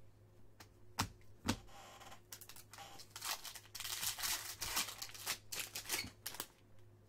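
Two sharp knocks about a second in, then a baseball card pack's foil wrapper being torn open and crinkled for several seconds.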